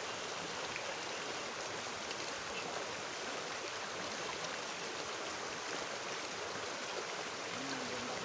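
Shallow river rushing steadily over rocks and small riffles, a constant even water noise.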